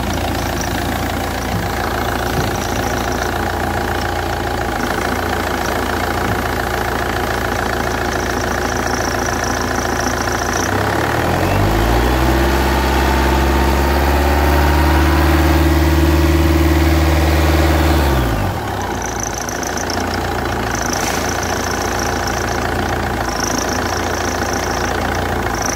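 Car engine idling with its alternator belt drive running on a tensioner that is starting to fail. An on-and-off high-pitched whine is heard at idle. About eleven seconds in the engine is revved and held higher for several seconds, then drops back to idle.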